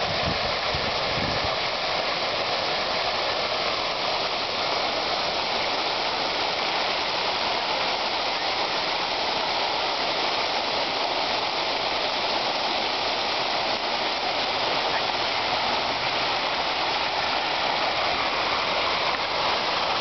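Many jets of a public water fountain spraying and falling into its basin: a steady, unbroken splashing of water.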